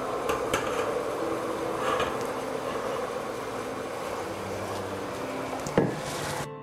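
Water boiling in the base of a stainless steel steamer, a steady bubbling hiss. A few light clinks come as the glass lid is lifted off, and a sharper knock near the end as the lid is set down.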